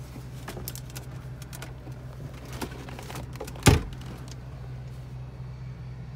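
Steady low hum of the Range Rover Sport with its engine idling, with a few light clicks of handling inside the car and one sharp, loud thump about three and a half seconds in, a door or lid being shut.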